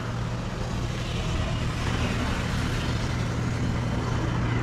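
DT-14 tractor's single-cylinder engine idling steadily with a low, even hum.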